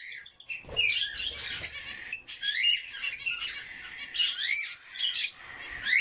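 Many caged pet birds, cockatiels and budgerigars, chirping and chattering in short, quick, overlapping calls.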